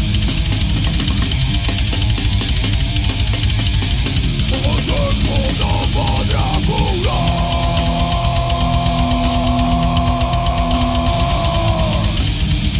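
Death crust band playing heavy metal: distorted guitars, bass and drums with crashing cymbals. Partway through, a high note bends up and down and is then held steady for about five seconds.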